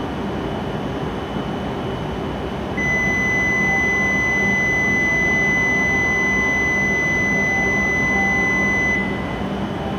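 Steady electronic beep from the platform departure buzzer: one high, unbroken tone starting about three seconds in and lasting about six seconds, the signal that the standing shinkansen is about to close its doors and leave. Beneath it runs a steady low station hum.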